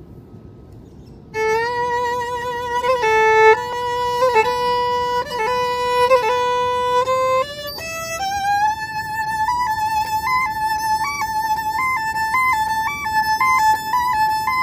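Solo violin improvising: it comes in about a second and a half in with long bowed notes, then slides up to a higher note around eight seconds in and holds it, decorated with quick repeated flicks to a note above.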